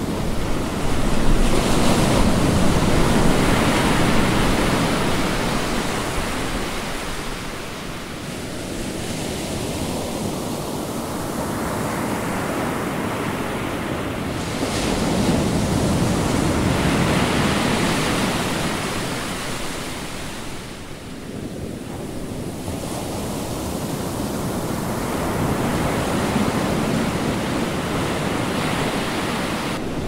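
Ocean surf: waves breaking and washing in with a continuous rush that swells and ebbs in three slow surges.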